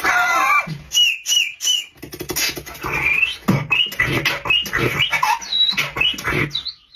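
A person making beatbox mouth sounds: a quick run of squeaky, whistle-like pitch glides mixed with sharp clicks, in imitation of an emoji's sound.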